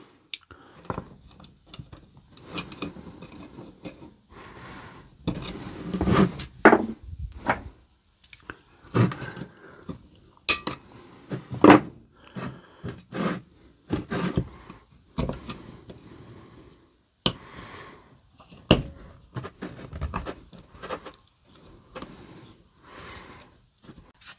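Irregular clicks, clinks, knocks and scrapes of an opened Milwaukee M18 battery pack and its plastic-and-metal circuit board being handled and set down on a workbench, with a small metal tool worked against the board's connection tabs near the end.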